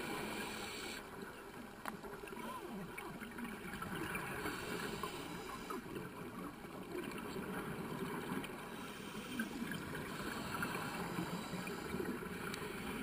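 Underwater ambience picked up through a dive camera housing: a steady low rushing hiss with scattered faint gurgles, chirps and ticks.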